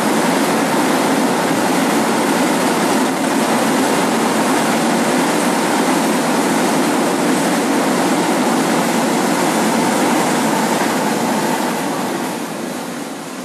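A train passing close by: a steady, loud rumble of the wheels and wagons that fades away over the last couple of seconds.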